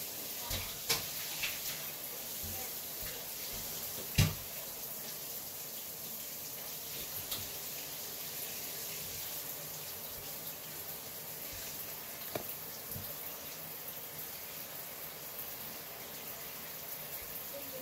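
Wet, gel-coated hair being brushed and smoothed by hand, heard as a steady soft hiss with a few light clicks. One sharper knock comes about four seconds in, and a smaller one later.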